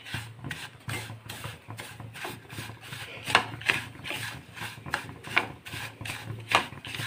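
Wooden spatula scraping and stirring a dry, crumbly mixture of roasted semolina, grated coconut and chopped nuts in a pan, in repeated rasping strokes about two a second.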